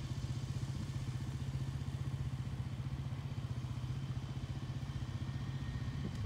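Off-road vehicle engine idling steadily, a fast, even low putter with no revving.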